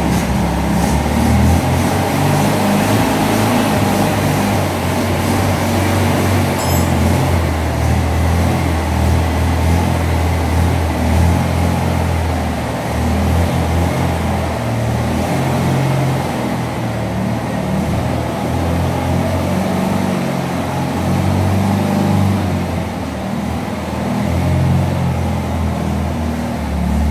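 Volkswagen Beetle's air-cooled flat-four engine running, its low note shifting up and down with the revs.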